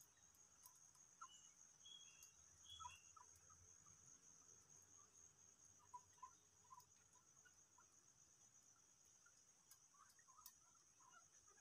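Faint, steady high-pitched drone of insects, such as crickets, with a few soft, scattered chirps.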